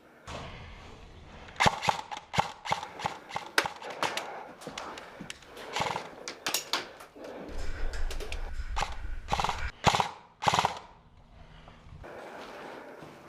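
Airsoft guns firing: a string of sharp, irregularly spaced shots, some in quick runs, starting about a second and a half in and stopping near the end.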